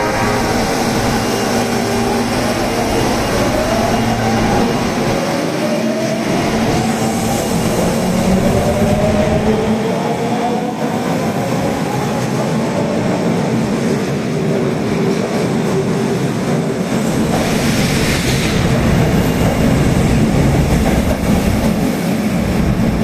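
Osaka Metro Tanimachi Line 22 series subway car pulling away: a motor whine rises in pitch over several seconds as it accelerates, then the car runs on with steady wheel-and-rail running noise.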